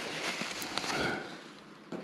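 A finger smearing wet caulk into the gap along the top of a baseboard: a soft rubbing and smearing that fades out after about a second.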